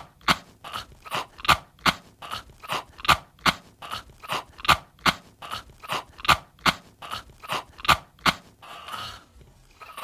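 A man coughing in a long, even run of short, sharp coughs, about three a second, that stops about eight seconds in, followed by a short breathy sound.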